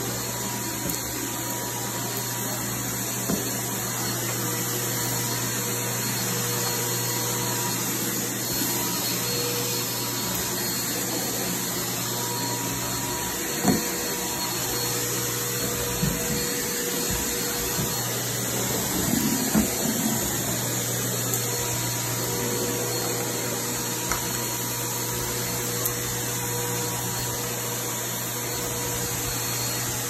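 Eureka Maxima vacuum cleaner running steadily, its floor tool on the wand being pushed and pulled over carpet. A few light knocks come from the tool around the middle.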